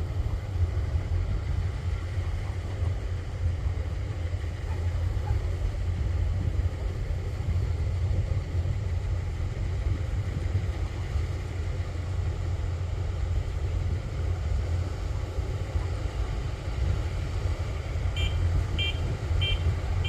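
Kubota rice combine harvester's diesel engine running steadily under load with a deep drone. Near the end, four short high beeps sound about half a second apart.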